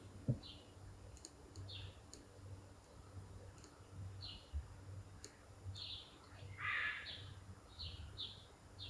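Newly hatched chicks peeping: short, high peeps that drop in pitch, coming every half second or so. A single knock comes just after the start, and a louder, rougher call near seven seconds.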